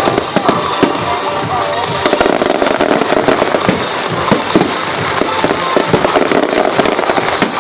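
Fireworks going off in quick succession, many sharp bangs and crackles, with music playing along.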